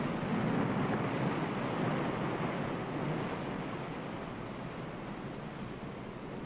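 A steady rushing roar with a low rumble, loudest in the first two seconds and slowly easing off.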